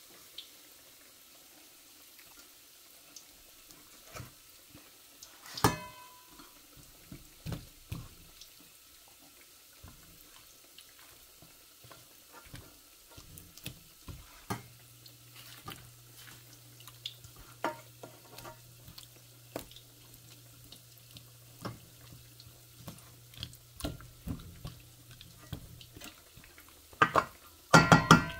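Kitchen prep: scattered clinks and knocks of utensils and dishes being handled, with one sharp ringing clink about six seconds in and a burst of loud metallic clatter near the end. A low steady hum runs through the middle stretch.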